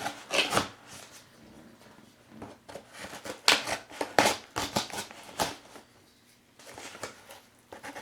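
Cardboard shipping box being opened and handled by hand: irregular scrapes, rustles and knocks of cardboard and packing, with a quieter spell about six seconds in.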